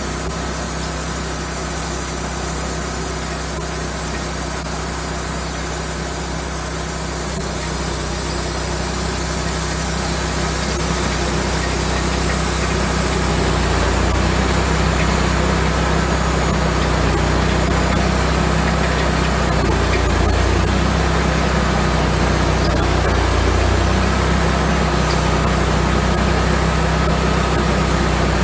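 Wood-Mizer LX150 bandsaw sawmill running steadily, its engine droning as the band blade saws a slab off a large sweetgum log; the sound slowly grows louder.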